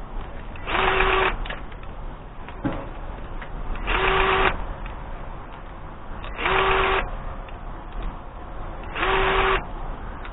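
Small electric power tool, like a cordless drill or driver, run in four short trigger bursts of about half a second each, roughly two and a half seconds apart. Each burst opens with the motor winding up in pitch, then holds a steady whir.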